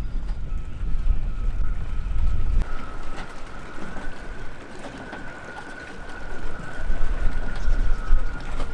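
Gusty wind buffeting the microphone in low rumbling blasts, easing off in the middle and picking up again near the end, with a thin steady whistle underneath.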